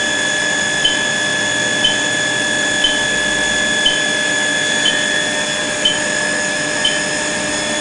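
Brazing heater running a timed heating cycle: a steady electrical whine at several pitches, with a short beep about once a second.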